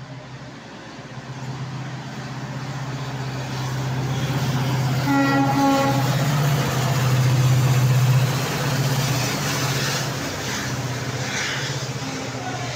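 WDP4D diesel-electric locomotive with a two-stroke EMD engine running through a station at speed, its engine drone growing louder as it nears. Its horn sounds briefly about five seconds in, then the coaches rattle past over the rail joints.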